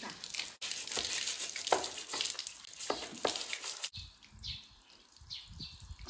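A baby stroller being washed: a hiss of spraying or running water mixed with scrubbing strokes. About four seconds in it turns quieter, with a few low knocks.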